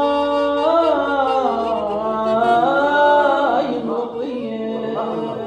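A man singing an Arabic song phrase, holding long notes that slide up and down in pitch, then trailing off in the last couple of seconds.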